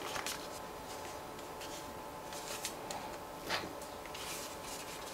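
Faint handling noise: hands turning over the plastic body of a CYCPLUS A5 portable tyre inflator, with soft rubs and small taps, one a little louder about three and a half seconds in.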